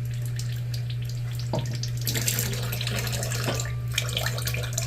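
Used engine oil pouring and splattering into a drain pan, getting heavier about two seconds in, over a steady low hum.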